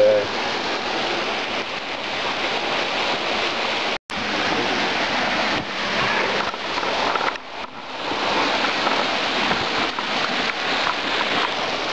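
Steady rush of flowing creek water, with a brief drop to silence about four seconds in.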